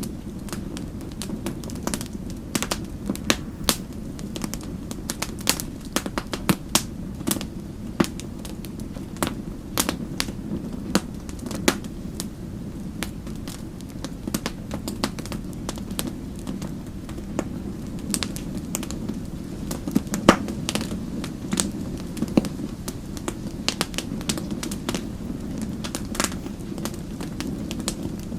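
Wood fire crackling in a fireplace: frequent, irregular sharp pops and snaps over a steady low rumble, with one louder pop about two-thirds of the way through.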